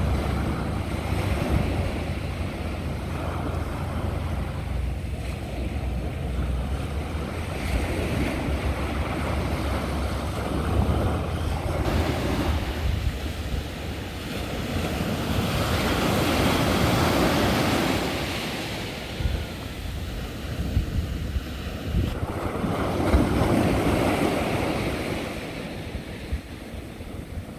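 Small waves breaking and washing up onto a sandy beach, the surf swelling and ebbing every few seconds, loudest about two-thirds of the way in and again near the end. Wind buffets the microphone throughout as a low rumble.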